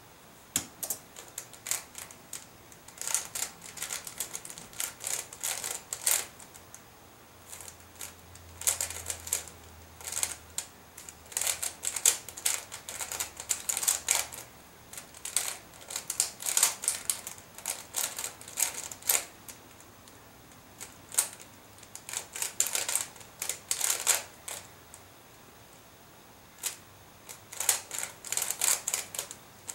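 Square-1 puzzle being speed-solved: rapid runs of plastic clicks and clacks from layer twists and slice turns, broken by short pauses between move sequences.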